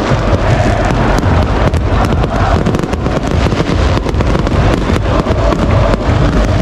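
Stadium fireworks going off in rapid crackles and bangs over the steady noise of a large football crowd.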